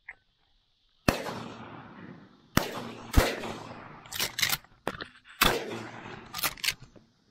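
Shotgun shots at flying doves: loud reports with echoing tails about a second in, around two and a half and three seconds in, and again about five and a half seconds in, with several quieter sharp cracks between.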